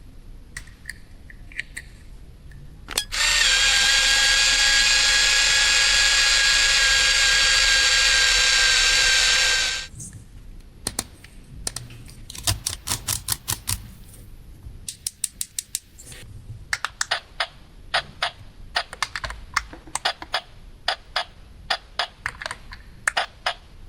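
Small plastic toy pieces clicking and tapping as they are handled. From about three seconds in, a battery-powered toy gives a loud, steady whirring tone for about six and a half seconds, which cuts off suddenly. Quick runs of light clicks follow.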